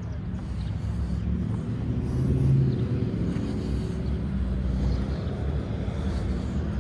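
Low engine rumble of a motor vehicle going by, swelling about two and a half seconds in and then holding steady.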